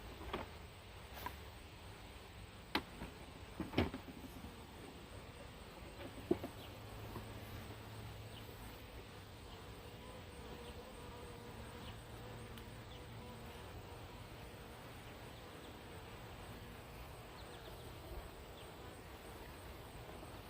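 A honey bee swarm buzzing steadily while it is being shaken into a nuc box. There are a few sharp knocks in the first six seconds or so.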